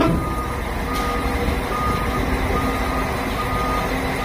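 Warning alarm on a Doosan DX800LC-7 excavator beeping about once a second, a single high pitch, over the steady running of its diesel engine.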